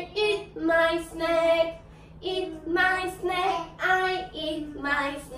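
A children's action song about feelings being sung, mainly a child's voice with a woman's voice, in short sung phrases with a brief pause about two seconds in.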